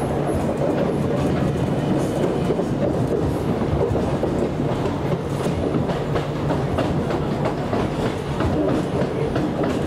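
Cabin running noise of a Class 455 electric multiple unit at speed: a steady rumble of wheels on the track, with light clicks as they pass over rail joints.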